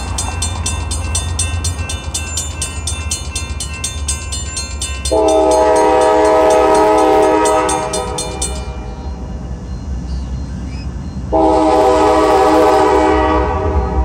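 Railroad crossing bell ringing rapidly while the gates lower, stopping after about eight seconds. An approaching train's horn sounds two long blasts, the first about five seconds in and the second near the end.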